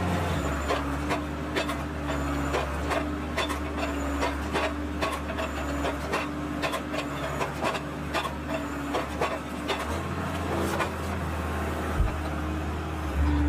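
Naarva S23 felling head on a tractor crane working birch stems: the engine and hydraulics run steadily under frequent irregular wooden knocks and clicks as the head grips and feeds the stem in pulses.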